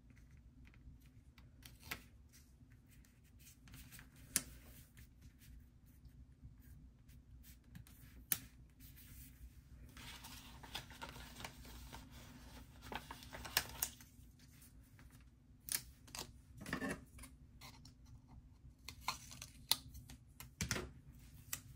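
Soft desk crafting sounds: a pen drawing lines on planner paper, paper and sticker sheets being handled with scattered light clicks and rustles, and scissors snipping near the end.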